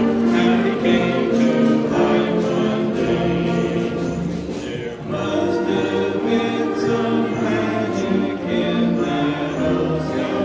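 A middle-school concert band playing a Christmas song while voices sing along.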